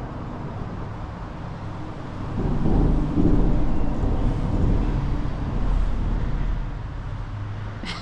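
Vehicle crossing the road bridge overhead: a low rumble that swells about two and a half seconds in and fades away over the next four seconds.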